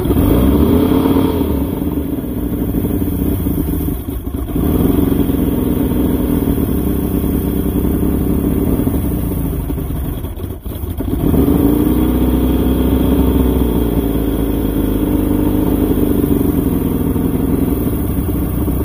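Carbureted Mercury outboard engine, cowling off, starting and running, revved up just after it catches and again about halfway through, with brief dips in speed between. It is being run to burn the remaining fuel out of the carburetors for winter storage.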